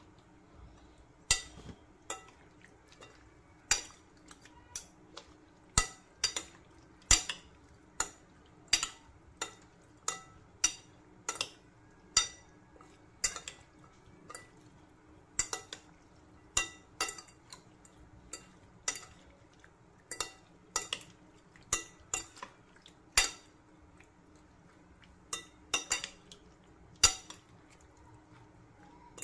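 Metal spoon and fork clinking against a ceramic bowl while mixing chopped raw fish: sharp, irregular clinks, about one or two a second.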